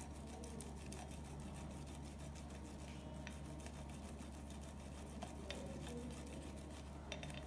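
Peeled hard-boiled egg being grated on a small flat stainless steel hand grater: faint, quick, repeated scraping strokes over a steady low hum.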